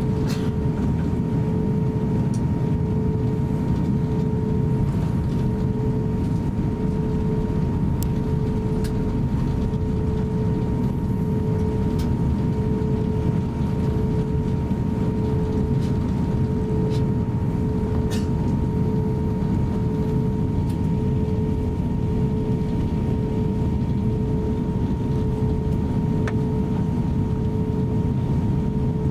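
Cabin noise of an Airbus A350-900 taxiing, its Rolls-Royce Trent XWB engines at low power: a steady low rumble with a constant humming tone over it and a few faint ticks.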